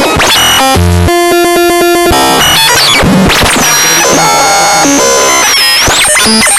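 Loud, harsh electronic synthesizer music or sound effect with a noisy texture: a pulsing chord early on, then high sliding whistle-like tones.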